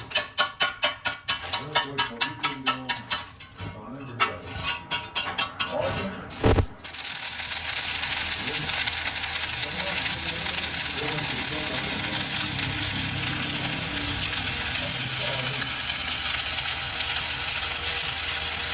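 Workshop metalworking: quick, evenly spaced strokes on metal, about three or four a second, for some six seconds, ending in one heavy thud. Then a steady, even machine noise starts and keeps going.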